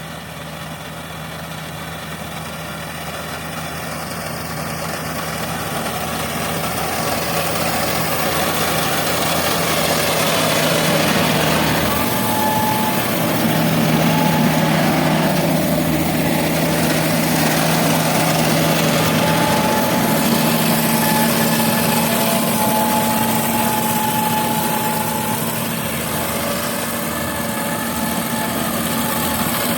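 Yanmar combine harvester's diesel engine running as the machine drives, a steady drone that grows louder over the first several seconds and then holds level.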